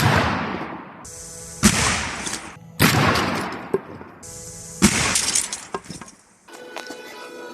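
Four Saiga-12 12-gauge shotgun shots striking building material, each a sharp blast followed by a shattering crash that dies away over about a second, spaced one to two seconds apart; the first is the loudest. Background music takes over near the end.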